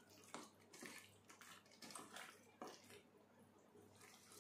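Faint wet squelching of a hand mixing raw chicken pieces through a thick yogurt-and-spice marinade in a stainless steel bowl, in short irregular strokes.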